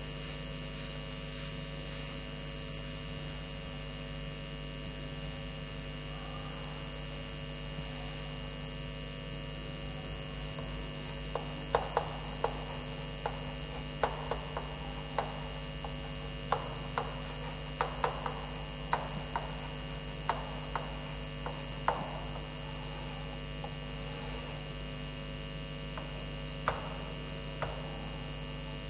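Steady electrical mains hum, with a run of short, sharp taps and scrapes of chalk writing on a blackboard from about eleven to twenty-two seconds in, and two more taps near the end.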